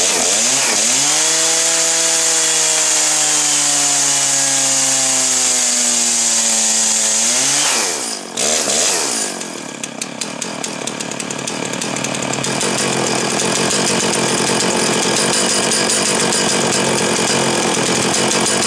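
Stihl MS 660 two-stroke chainsaw running at high revs with its pitch slowly sagging. About eight seconds in it rises briefly, then drops to a lumpy idle. A few seconds later it revs up again and runs steadily.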